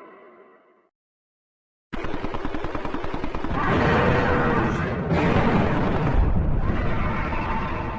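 A fading tone dies away into a second of complete silence, then a loud, dense rattling noise starts suddenly and carries on, with a brief break about five seconds in.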